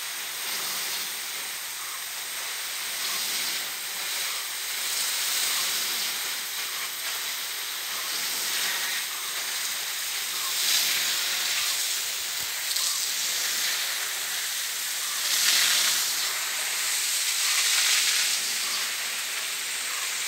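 Power jet (rain gun) sprinkler shooting a long jet of water: a steady hiss of spray, swelling louder several times.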